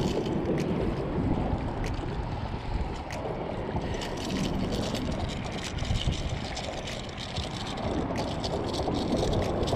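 Steady wind and water noise on the microphone, with scattered sharp clicks and taps as a small bluefish is handled on the line and lure.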